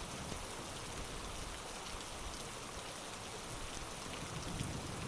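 Steady rainfall, an even hiss with scattered small drop ticks.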